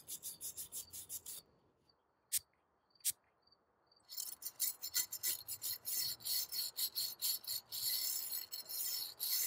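Old toothbrush scrubbing the blades of bypass secateurs and then the toothed blade of a Silky Pocketboy folding pruning saw in quick, rasping back-and-forth strokes, cleaning the pruning tools. The strokes stop briefly about a second and a half in, with a couple of single clicks in the pause, then pick up again and run on steadily.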